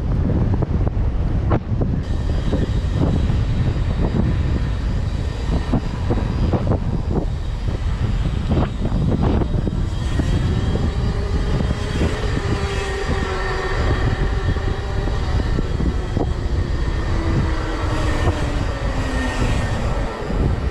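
Road travel noise: heavy wind and road rumble on the microphone with scattered knocks. From about halfway a whine joins in and slowly drops in pitch.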